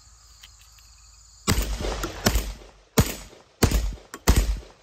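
Aksa S4 semi-automatic 12-gauge shotgun firing five shots in quick succession, about three quarters of a second apart, starting about a second and a half in. The gas-operated action cycles and ejects after every shot with light, lower-velocity birdshot loads, and the gun runs the magazine empty.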